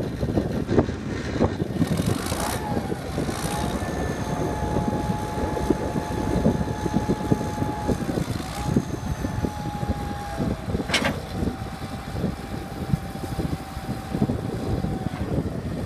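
1970 John Deere 644 wheel loader's 404 cubic inch turbocharged diesel running while the loader arms lift the bucket to full height. A steady whine sits over the engine from about two and a half seconds in until shortly before the end, and a single sharp knock sounds about eleven seconds in.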